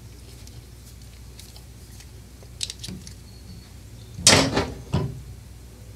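Small clicks from a hand crimping tool and wire terminal being handled, then a loud clatter of metal about four seconds in and a smaller one about a second later, as the tool is put down and the wire is worked into place.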